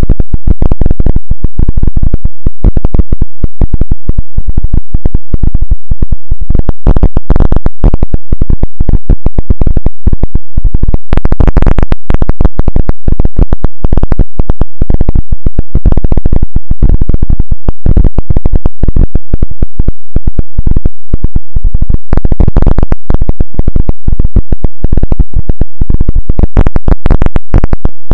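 Harsh, heavily distorted noise at full loudness: a dense, unbroken stream of crackles and clicks, heaviest in the low end.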